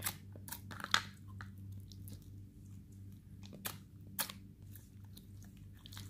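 Clear glitter slime with beads being pressed and squeezed by fingers, giving irregular sharp clicks and pops, the loudest about a second in and again around four seconds in. A steady low hum runs underneath.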